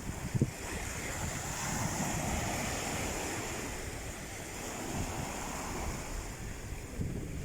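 Sea waves washing onto the shore, one swell building and easing about two seconds in, with wind buffeting the microphone.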